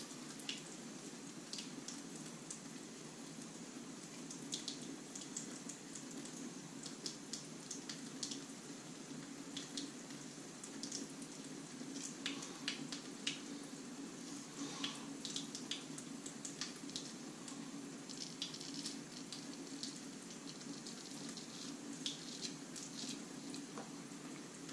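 Dovo Best Quality 6/8 straight razor cutting lathered beard stubble: many short, crisp scraping strokes, some in quick runs, others singly, over a faint steady hum.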